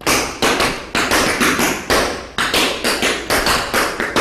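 Tap shoes striking a wooden floor in an even run of sharp taps, about four a second: a tap dancer working through essence steps, single, double and triple, with the rhythm varied.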